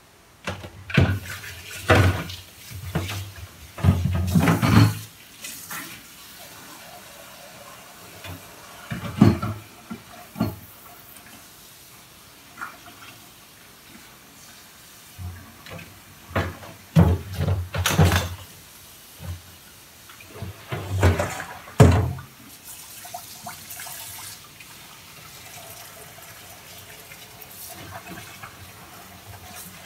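Kitchen tap running into a stainless-steel sink while dishes and a plastic colander are rinsed, with clusters of knocks and clatters as they are handled. The clatter stops after about three-quarters of the time, leaving only the water running.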